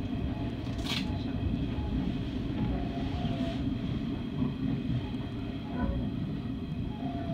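Hanshin 9000 series electric train running on elevated track, heard from inside the front car: a steady rumble of wheels on rail with a faint higher whine above it, and a short sharp click about a second in.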